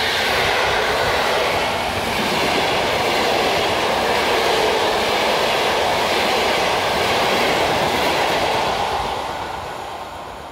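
Passenger express train's coaches passing at speed, a steady rush of wheel-on-rail noise. It fades away over the last two seconds as the tail of the train goes by.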